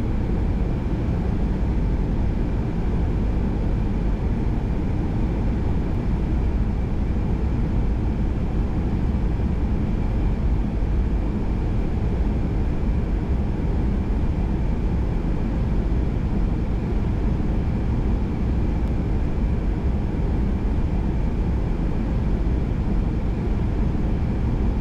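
Steady rushing flight-deck noise of a Boeing 737-800 in flight on approach, heaviest in the low end, with a faint steady high tone running through it.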